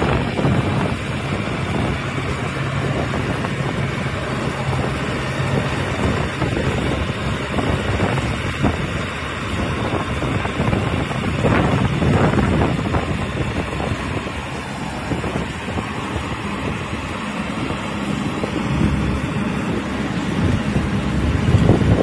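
Rice combine harvester's engine running steadily as it cuts through the paddy, with wind buffeting the microphone.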